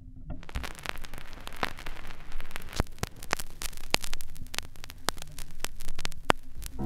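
Vinyl record surface noise from the stylus riding the lead-in groove of an LP: a steady hiss with frequent crackles and sharp pops. It starts abruptly about a third of a second in.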